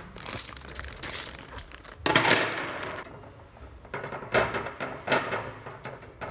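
Metal parts and small tools clinking and rattling during hand work on a brake line, with a louder scraping rush about two seconds in and a run of sharp clicks in the second half.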